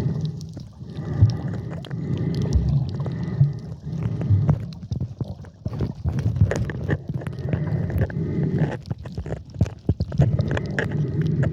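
Muffled water sloshing and gurgling around a camera in the sea during snorkeling, with many small clicks and crackles.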